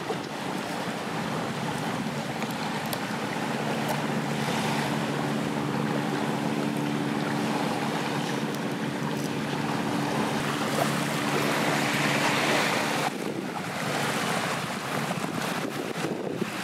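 Wind on the microphone over the rush of surf. A steady low hum runs through most of it and cuts off suddenly about thirteen seconds in.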